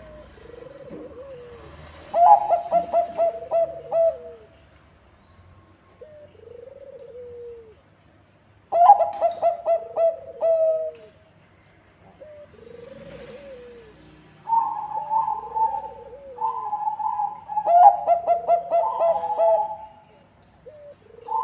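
Bangkok-type zebra doves (perkutut) cooing. Three loud phrases each run quickly through short stuttering coo notes, the last one longer, and softer arched coo notes repeat in between.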